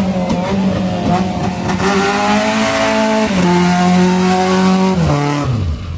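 Mazda MX-5 Miata's four-cylinder engine held at high revs during a burnout, with tyres squealing against the pavement. The revs shift briefly about three seconds in, then fall away near the end.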